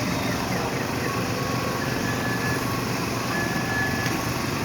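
Busy outdoor ambience, a steady even din of a crowded play area, with a high electronic beep sounding three times, each under a second long, about a second and a half apart.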